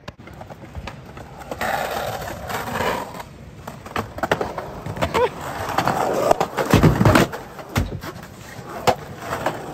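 Skateboard on concrete: wheels rolling with repeated clacks of the board, and heavy thuds of the board hitting the ground about seven and eight seconds in.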